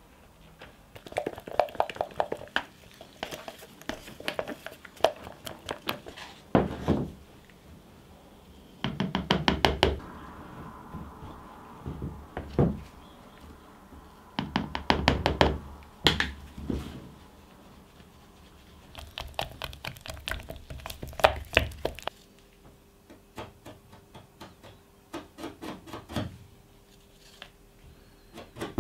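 Two-part epoxy being mixed by hand in a plastic cup: the dispenser pumps clicking as resin and hardener are metered out, then bursts of rapid tapping and scraping as a wooden stir stick works in microfibre filler and sanding dust.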